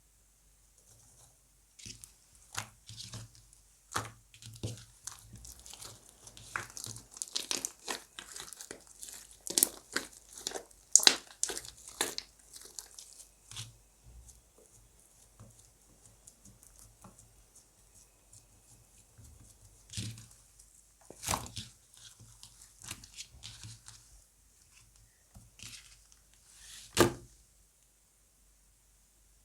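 Mixed slime being squeezed, stretched and folded by hand: a run of sticky crackles and air-pocket pops, dense for the first dozen seconds, then a few scattered, louder single pops.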